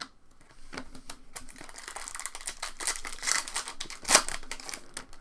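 Trading card pack wrapper being torn open and crinkled, a dense crackling rustle with one louder sharp crack a little after four seconds in.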